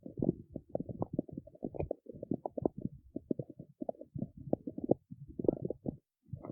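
A person's stomach growling: a rapid run of short gurgles and squelches, several a second, with a brief pause near the end.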